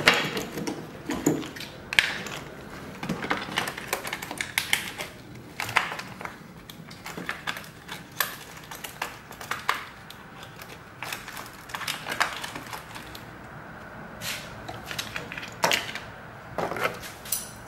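A 10mm wrench working the car battery's terminal clamps loose, giving irregular metallic clicks and taps.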